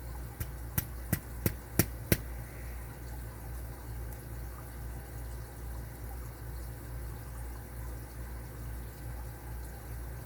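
About six sharp metallic clicks in quick succession as a tool is set against the padlock's body and screws, followed by a steady low hum.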